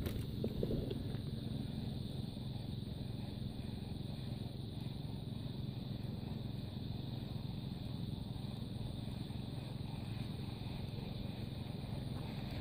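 Engine running steadily with a low, even hum.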